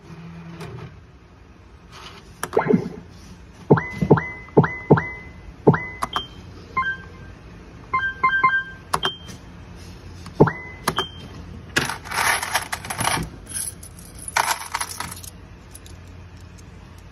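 A Ring pachislot machine being played: a run of sharp clicks from its controls, most followed by a short electronic beep, several in quick succession. Later come two longer hissy bursts of the machine's effect sounds.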